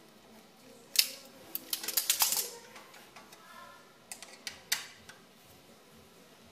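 Sharp metallic clicks and clatter of hand tools working on a bicycle's rear derailleur cable: one loud click about a second in, a quick run of clicks shortly after, and a few more clicks a couple of seconds later.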